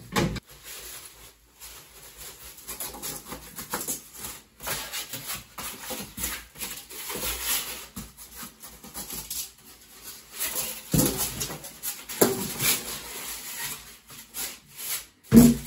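Packing material being handled in a crib box: plastic wrap rustling and styrofoam sheets rubbing, broken by a few knocks, the loudest near the end.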